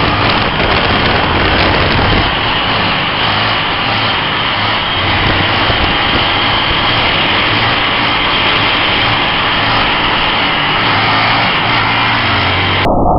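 Motorcycle engine running as the bike rides a wheelie on its rear wheel, half buried in heavy wind noise on the microphone. Near the end the sound abruptly turns duller.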